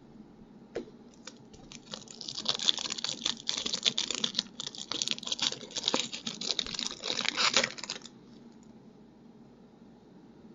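Baseball trading cards and their pack wrapper being handled, making dense crinkling with rapid small clicks for about six seconds, starting about two seconds in.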